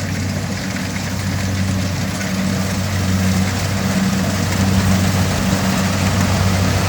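Kubota DC70 Plus combine harvester running steadily: a constant low engine drone under a broad rush of machinery noise, growing slightly louder about three seconds in.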